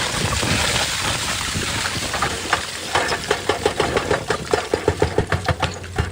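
Excavator's diesel engine running with a steady low hum. From about two and a half seconds in, a rapid, irregular clatter of hard knocks comes in over it.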